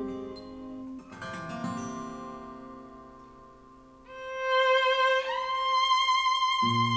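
Instrumental break in a slow ballad played back through bookshelf speakers: plucked guitar notes fade out, then about four seconds in a violin enters with a long held note that steps up higher, and low bass notes come in near the end.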